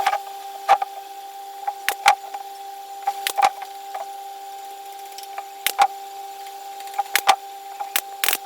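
A small electric motor tool running at a steady pitch, with irregular sharp clicks and taps scattered over it.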